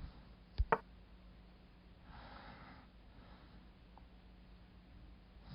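Two quick sharp clicks close together, the second with a brief ringing tone, then a faint breath.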